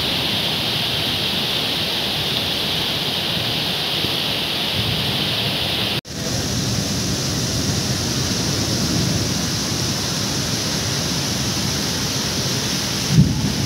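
Heavy rain pouring down in a steady rush. About six seconds in the sound cuts out for an instant and comes back with a slightly different tone, and a short low thump sounds near the end.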